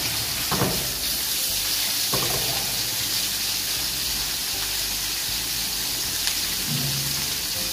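Chopped boiled pig's ear and face sizzling steadily as they fry in a frying pan, with two brief knocks in the first few seconds as the pieces are slid in.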